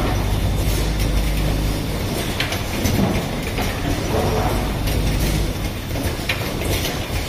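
Automatic rapid test kit assembly machine running: a steady low hum with repeated mechanical clicks and clatter as it cycles.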